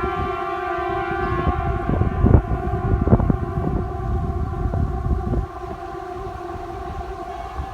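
Outdoor civil-defence air-raid siren sounding a steady tone made of several pitches at once, neither rising nor falling, over a low rumble.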